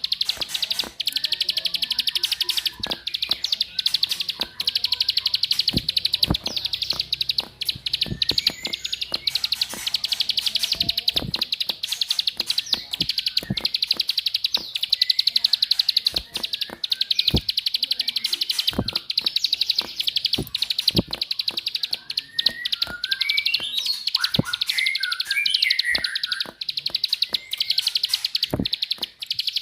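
Ciblek (prinia) giving its rapid 'klik-klik' clicking call: a dense, continuous run of high ticks, with a short burst of rising and falling warbled notes about 23 seconds in. This is a lure call of the kind played to set ciblek singing.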